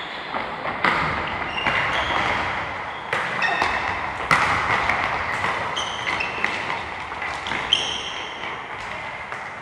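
Soccer balls being kicked and bouncing with sharp, irregular thuds, mixed with short high-pitched squeaks, echoing in a large hall.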